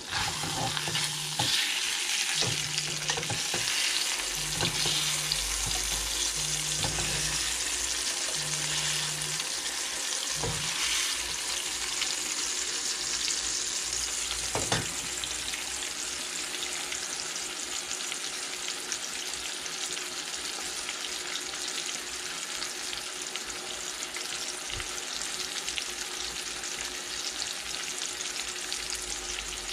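Ribeye steak sizzling in hot oil in a stainless steel skillet: a steady frying sizzle.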